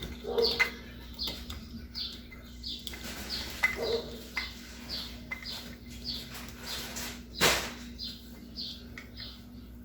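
A small bird chirping over and over, short high falling chirps about twice a second. A single sharp click stands out about three quarters of the way through.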